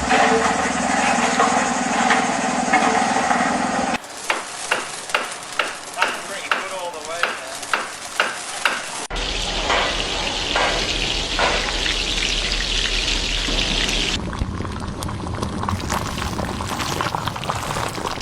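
Miniature cooking sounds in quick cuts: food frying with a steady sizzle, a run of about ten sharp knocks at roughly two a second, then more sizzling.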